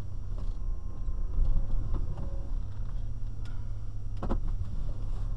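Car moving slowly, heard from inside the cabin: a steady low engine rumble, with a few scattered light clicks and a sharper double click about four seconds in.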